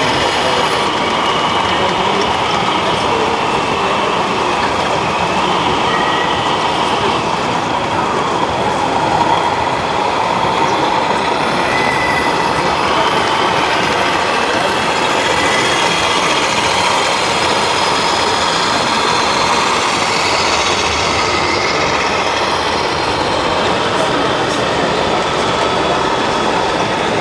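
Radio-controlled scale model trucks running, over a steady background of crowd chatter.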